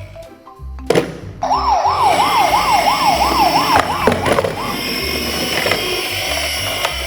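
An electronic siren warbling quickly up and down, about three times a second, for roughly three seconds, starting just after a sharp click.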